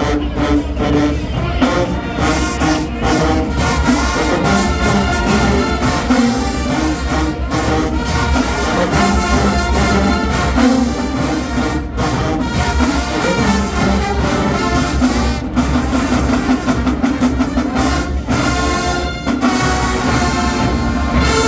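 Marching band playing at full volume, with massed brass (trumpets and trombones) carrying the tune over steady drumline beats.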